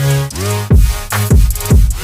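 Background electronic music with heavy kick drums and a held synth bass line, no vocals.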